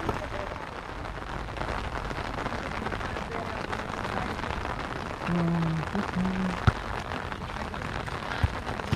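Steady rain falling, an even hiss. A little past halfway come two short low hums and a couple of sharp knocks.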